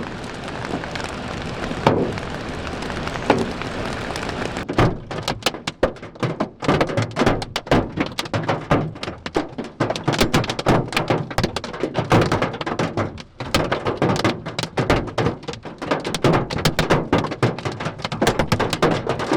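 Hailstones pelting a vehicle's roof and windshield, heard from inside the cabin. At first it is a steady rain-like rush with a few knocks; from about five seconds in it becomes a dense, irregular barrage of hard knocks as larger stones hit.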